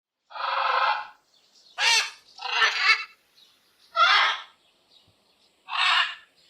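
Parrot squawking: five harsh calls, each under a second long, with short gaps between them.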